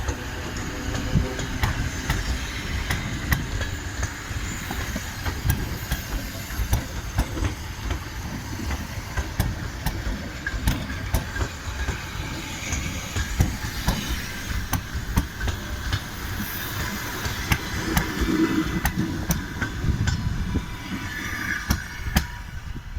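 ED4M electric multiple-unit train's wheels clattering over rail joints: repeated sharp knocks over a steady low rumble.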